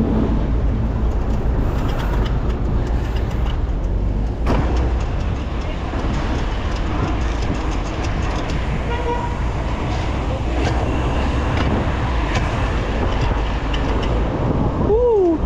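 Steady rumble of wind and road traffic while cycling through city streets. Near the end comes a brief whistle-like tone that falls in pitch.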